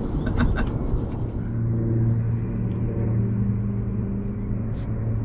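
A steady low motor hum over a low rumble, strongest from about a second in until near the end.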